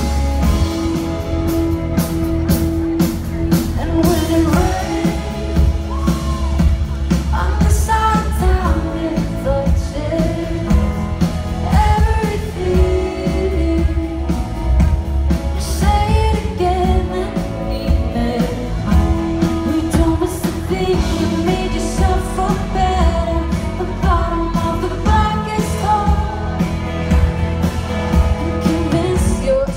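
Live pop-rock band playing a song, with a female lead vocal over electric guitars, bass and drums, heard from within the audience.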